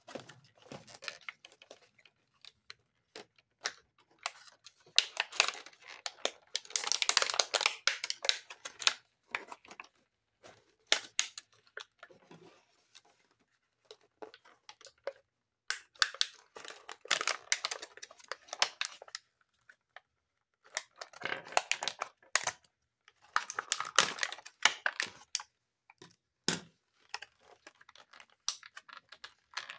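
Thin plastic packaging being crinkled and torn open by hand, with scissors snipping at the plastic; the crackling comes in bursts of a few seconds with quieter gaps between.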